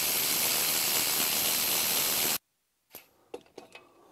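A steady, loud hiss that cuts off sharply about two and a half seconds in, followed by a moment of total silence and a few faint clicks.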